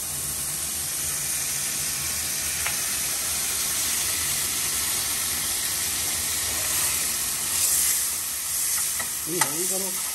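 Chicken leg pieces frying with a steady sizzle, and a short bit of voice near the end.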